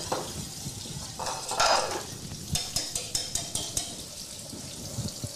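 Wire whisk stirring grits in a metal saucepan with a scraping sound, then a quick run of metal clinks against the pot about two and a half to four seconds in. Under it, the steady sizzle of a trout fillet frying in oil.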